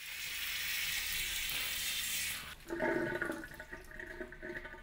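Handheld shower spray at a salon backwash basin running water over hair: a steady hiss that stops about two and a half seconds in. After it a steady held tone of several pitches sounds.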